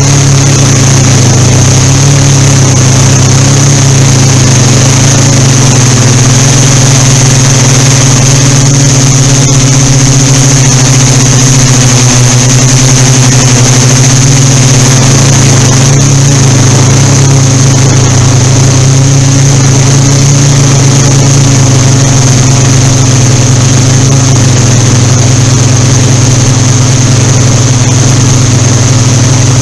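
Yuneec Typhoon Q500 4K quadcopter in flight, its four electric motors and propellers giving a loud, steady hum with a thin high whine, picked up close by the drone's own camera microphone. Wind noise runs under the hum.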